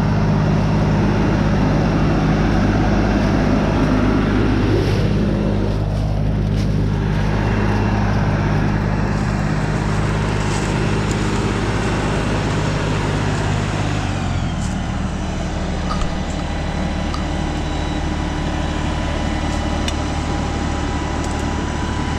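LS compact tractor's diesel engine running close by, steady, then its engine speed drops to a lower, steady note about two thirds of the way through.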